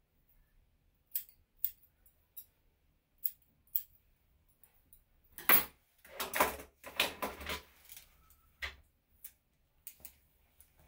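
Sharp snipping clicks from a hand grooming tool working on a Yorkshire terrier, five in the first four seconds and a few more near the end. In the middle a louder rustling clatter runs for about two seconds.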